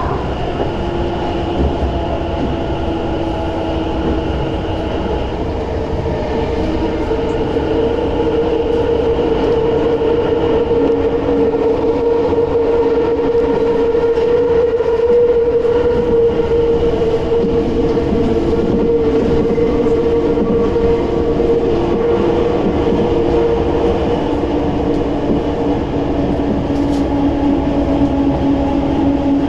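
Tokyo Metro 10000 series subway train heard from inside the car as it pulls out of a station into the tunnel: a steady whine of its VVVF-driven traction motors over the rumble of wheels on rail, growing louder over the first ten seconds as it gathers speed.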